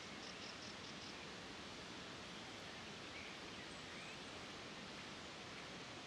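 Faint, steady outdoor hiss. Within the first second a small bird gives a quick run of five high chirps, and two fainter bird calls follow around the middle.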